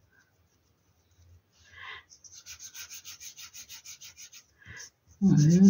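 Small paintbrush scrubbing pink gel chalk onto EVA foam in fast, even back-and-forth strokes, about eight a second, for a couple of seconds.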